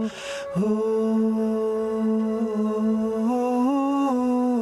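Isolated soul background vocal by a male singer, holding long steady sung notes without words. There is a short breathy sound at the start, and the pitch steps up a little past three seconds in and drops back down near the end.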